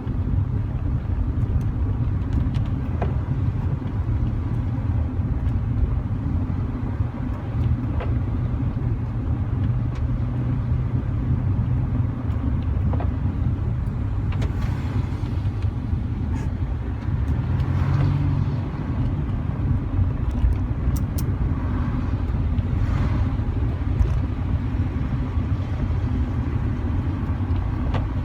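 Car driving, heard from inside the cabin: a steady low rumble of engine and tyre noise, with a few faint clicks now and then.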